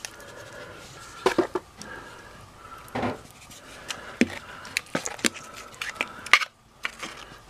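A trowel scraping and clicking against wet mortar as it is pressed and smoothed into the gap beside a window frame: a string of sharp clicks and short scrapes, with one longer scrape about three seconds in.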